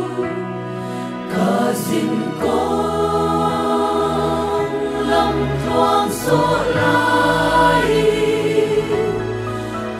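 A mixed choir of women's and men's voices singing a hymn, sustained notes moving from chord to chord without a pause.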